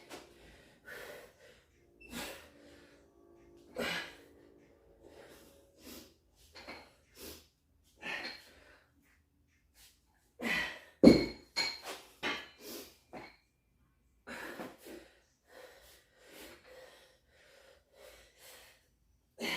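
A man breathing hard from exertion during a weightlifting set, short noisy puffs of breath coming about once a second. One much louder sudden sound comes about eleven seconds in.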